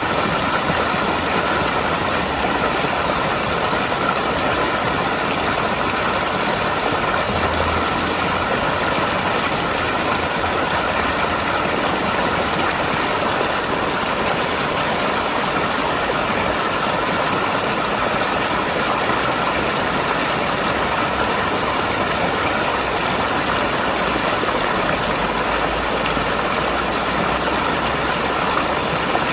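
Mountain river rushing and gurgling over rocks, a steady, unbroken rush of water.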